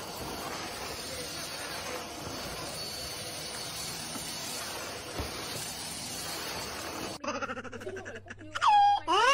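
Vacuum cleaner running steadily: an even hiss with a faint high whine. About seven seconds in it cuts off abruptly, and loud wavering vocal cries follow, with a sharp slide in pitch down and then up near the end.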